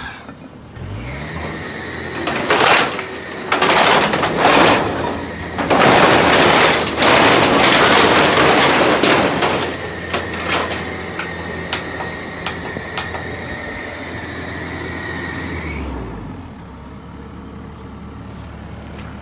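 CAT compact excavator working: its engine revs up about a second in and holds under load with a steady hydraulic whine, while the bucket tears into the house and debris crashes and crunches loudly for several seconds, followed by scattered knocks. Near the end the engine drops back and the whine stops.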